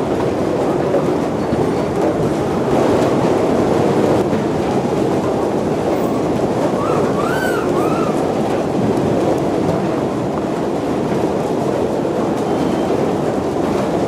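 Pulpwood logs tumbling and knocking inside a rotating drum debarker, a loud, steady rumbling clatter of wood against wood and steel. About seven seconds in, a short squealing tone rises and falls three times.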